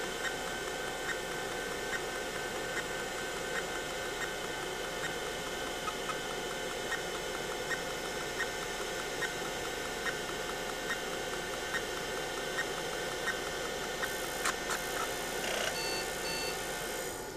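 Tandon TM-362 MFM hard drive running after power-up: a steady whir with a light, regular tick about every 0.8 s and a few sharper clicks near the end. The drive does not come ready, and the PC then reports a 1701 fixed-disk error.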